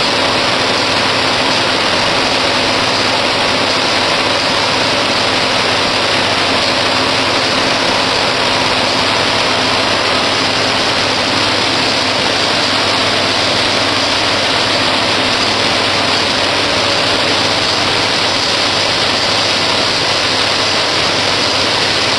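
ECH Will paper sheeter running: a loud, steady machine noise, a dense hiss with a faint low hum held under it and no change throughout.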